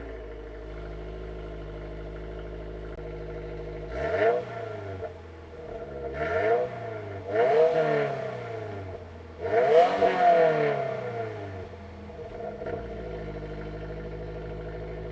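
Stock exhaust of a 2022+ Subaru WRX's 2.4-litre turbocharged flat-four, idling steadily, then blipped through several quick revs that each fall back to idle. The biggest rev comes about ten seconds in, and a smaller one near the end before it settles back to idle.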